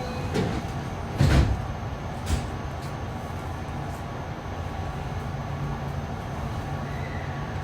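JR West 207 series electric train running, heard from inside the car: a steady low rolling rumble, with a loud knock about a second in and a smaller one a second later, and a few faint clicks. A faint tone slides down near the end.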